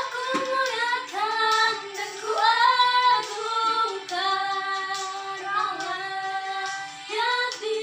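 A woman singing a melody into a phone held like a microphone, holding long notes and sliding between them, with a steady backing accompaniment underneath.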